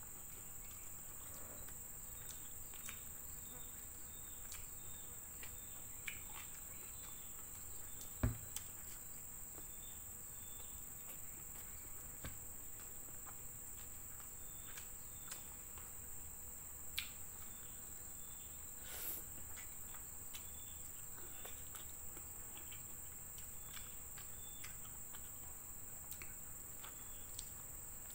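Small mouth and hand eating sounds, soft chewing clicks and smacks, over a steady high-pitched insect chirring. A sharp click about eight seconds in is the loudest sound.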